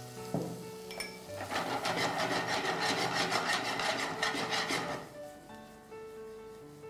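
Metal spatula scraping and stirring paneer and peppers in a non-stick frying pan, a rapid run of scraping strokes from about a second and a half in until about five seconds in, over steady background music.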